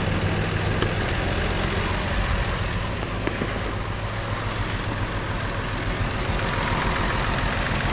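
Nissan Pathfinder's 4.0-litre V6 idling steadily with a misfire: one cylinder, number 5, is not firing.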